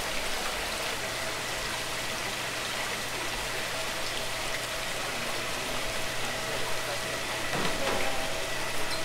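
Steady rush of running water, with faint steady hums underneath.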